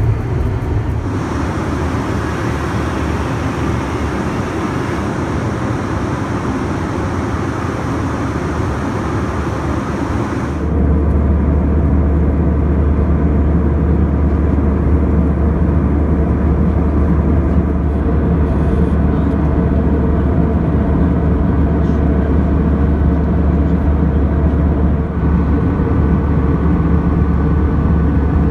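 Steady engine and airflow noise heard inside the cabin of an Airbus A320 airliner, a broad rumble with a constant hum. It changes abruptly about a second in, and again about ten seconds in, when it becomes louder and deeper.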